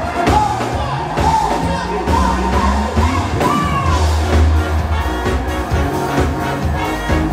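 A live band playing: a steady drum beat and a heavy bass line under a melody that slides up and down between notes.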